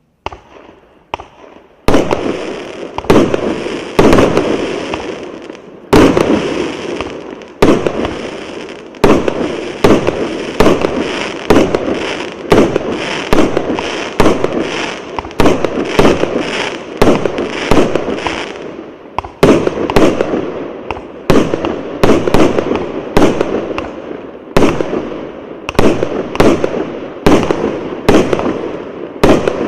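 VH8439 90-shot 1.2-inch fireworks battery (cake) firing its shots in steady succession. After a few faint pops, the sharp bangs begin about two seconds in, about one to two a second, each trailing off in crackle.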